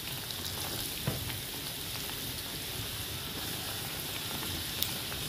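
Battered tofu deep-frying in hot oil: a steady sizzle and fine crackle of bubbling oil, with a sharper tick about a second in and another near the end.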